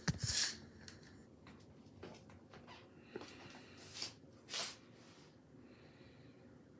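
A run of short, sharp sneezes: the loudest right at the start, then two quicker ones about four seconds in, with a few faint clicks between.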